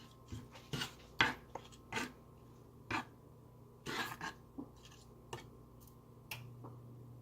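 A spoon clinking and scraping against a pot of simmering sauce: light, irregular knocks about once a second. A faint low hum comes in near the end.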